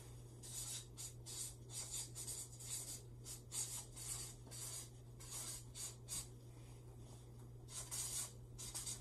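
Marker writing on a paper flip chart pad: a faint run of short scratchy strokes, several a second, over a steady low hum.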